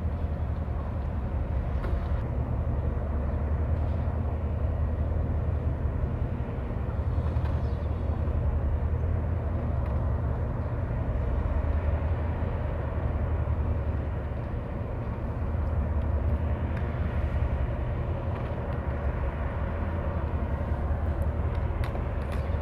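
Tokara-class patrol vessel's engines running with a steady low rumble as it comes into port.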